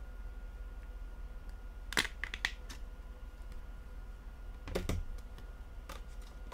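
Plastic back cover of a Samsung Galaxy Note 2 being pried off by hand: a few sharp snaps of its clips about two seconds in, then a knock and a click as the phone is set down on a table.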